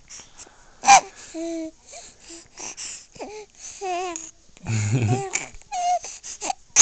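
Young baby vocalising in a string of short coos and squeals, one with a wavering pitch about four seconds in, with a sharp loud squeal about a second in and another at the very end.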